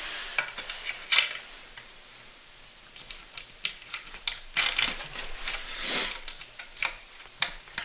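Irregular light metal clicks and ticks, with a few short scrapes, of a wrench and bolt hardware being worked by hand while the rodel's steering bolts with nylon friction nuts are tightened.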